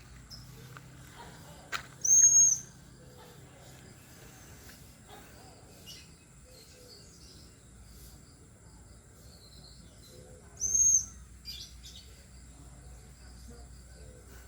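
Lovebird giving two shrill, high-pitched calls about half a second long, one about two seconds in and another about ten seconds in, with faint chirps between them.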